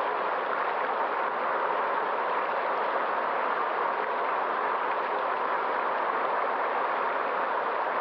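Steady rush of a flowing stream, an even hiss of running water with no breaks or changes.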